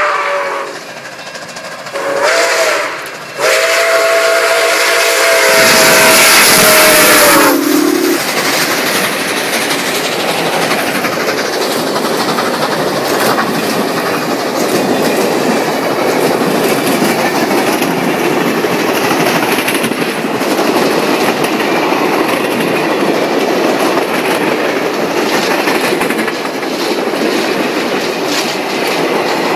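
Nickel Plate Road 765 steam locomotive blowing its whistle, a short blast and then a long one that drops in pitch and cuts off about seven seconds in as the engine passes at its loudest. Then its passenger cars roll past steadily.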